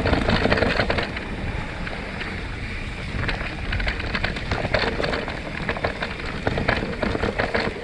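Mountain bike riding down a dirt forest trail: wind buffeting the camera microphone over the rumble of the tyres on dirt, with frequent short clicks and knocks from the bike over bumps.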